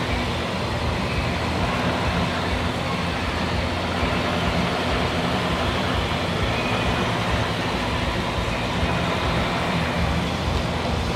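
Mercedes-Benz CL600's twin-turbo V12 idling steadily while the Active Body Control hydraulic pump works through the rodeo test cycles. The pump noise is very minimal, a sign that most of the air has been bled out of the system.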